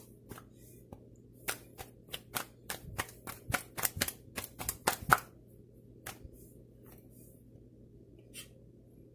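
Light kitchen handling clicks and taps as a rolled top crust is lifted and laid over a pie dish: a quick run of sharp clicks, about three a second, for nearly four seconds, the loudest near the end of the run, then a few scattered taps.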